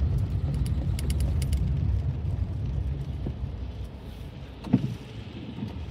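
Car road noise heard from inside the cabin while driving on a wet road: a steady low rumble that fades over the second half as the car slows to a stop at traffic lights. A few light clicks come about a second in, and there is a brief sharp sound near the end.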